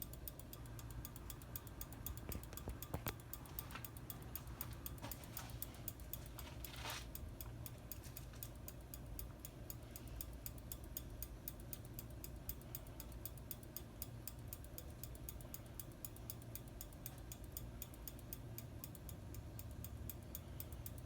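Hampton Bay Minuet II ceiling fan running on low with a faint steady hum, while a pull chain taps the fan's light bulb in a rapid, regular ticking.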